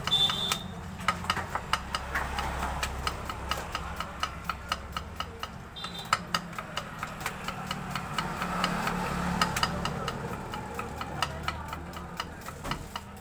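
Large knife slicing red onion into thin rings, the blade clicking against the board in quick, steady strokes about three to four times a second. A steady low hum runs underneath.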